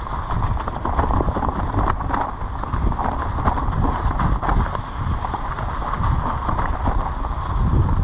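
Vehicle driving over a rocky track: a steady low rumble with a dense, uneven clatter of stones and knocks under the tyres.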